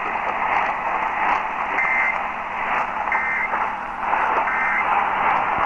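Three short warbling data bursts, about 1.3 s apart, typical of the Emergency Alert System end-of-message code, heard over steady hiss and static of an AM radio broadcast.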